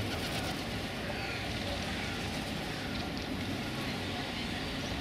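Steady outdoor background noise: an even rumble and hiss with no distinct events standing out.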